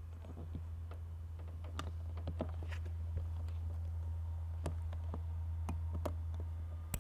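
Scattered light plastic clicks and taps from solar panel cable connectors being handled and pushed into an RV roof docking port, the latches clicking as they seat, over a steady low hum.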